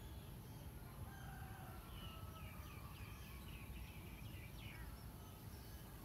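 A rooster crowing faintly, one drawn-out crow lasting a few seconds, over a low steady rumble.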